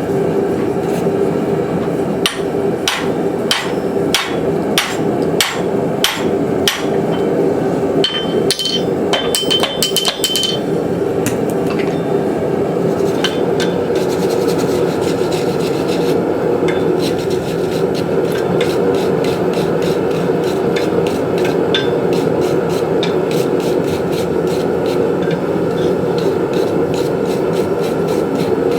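Hammer blows on hot steel, driving a tomahawk eye drift through the eye of a forged rasp tomahawk head. For the first ten seconds the blows come about two a second, with a ringing note near the end of that run, followed by a long run of quicker, lighter strikes. The forge's steady roar sounds underneath.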